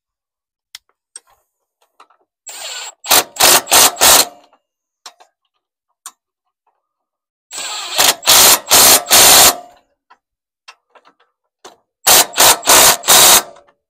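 Cordless impact wrench (rattle gun) doing up the mounting lock nuts. It goes in three runs, each a short free spin followed by about four quick blasts of hammering as the nut tightens.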